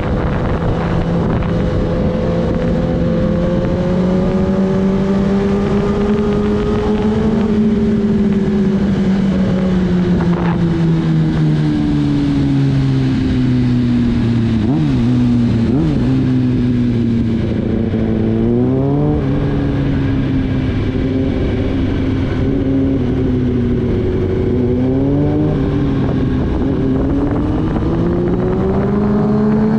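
Kawasaki Ninja ZX-10R's inline-four engine heard from the rider's seat while riding: its note sinks slowly for several seconds, then rises sharply in short bursts of throttle several times in the second half, over wind noise on the microphone.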